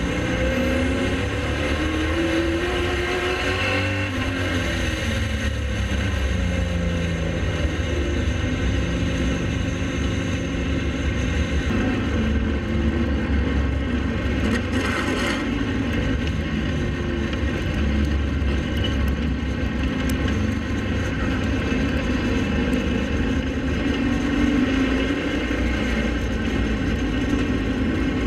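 Pro Late Model race car engines running hard, the pitch rising and falling as the cars lift off and accelerate again.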